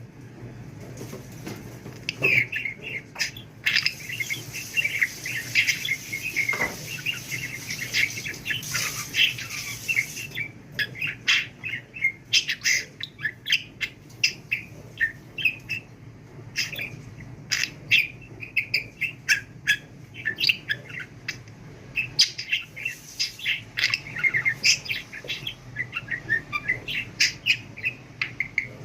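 Pet budgerigar chattering: a fast, nearly unbroken run of short chirps, squeaks and warbles.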